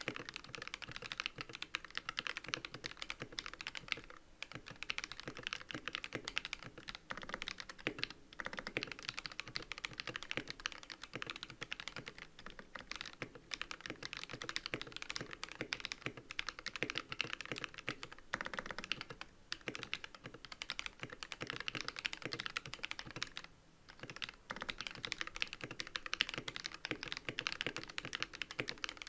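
GK64 mechanical keyboard with Creamerons switches being typed on fast and continuously, a dense run of keystrokes with brief pauses between bursts.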